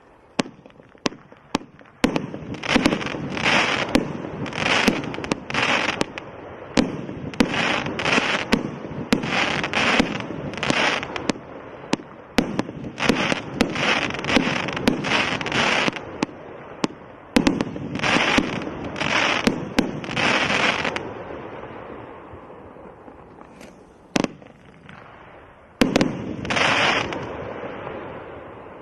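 'White Noise' firework cake by Fisherman Fireworks firing a long volley: sharp pops, each followed by a burst of hissing noise lasting about half a second to a second, roughly one a second. The shots thin out past the two-thirds mark, with a last few bursts near the end.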